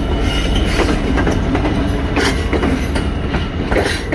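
Freight train of cement wagons rolling past, a steady rumble with repeated clacks of the wheels over the rail joints.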